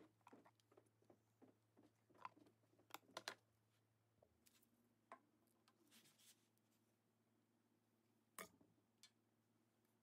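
Near silence: faint light taps and scratches of a pen marking a resin blank through a clear plastic centre-finding template, over a low steady hum. After about four seconds come a few soft knocks and one sharper click as the blank is fitted to the lathe chuck.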